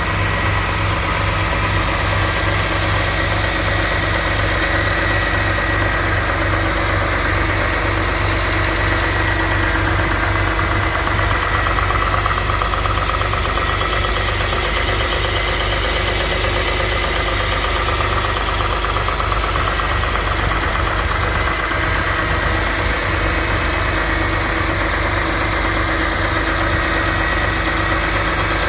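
BMW E46 M3's S54 straight-six idling steadily, with a rattle from the VANOS unit near its exhaust-side pressure accumulator. The owner ties the rattle to pressure fluctuations in the VANOS high-pressure oil system.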